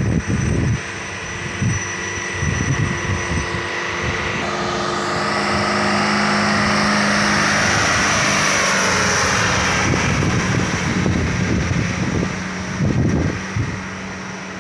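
A sugarcane-laden truck's diesel engine pulling hard up a hill at full throttle, growing louder as the truck passes close by about halfway through, then easing off as it moves away.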